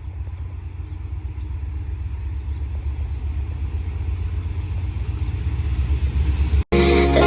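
Low rumble of an approaching diesel-electric locomotive, growing steadily louder. About six and a half seconds in, it cuts off abruptly and music begins.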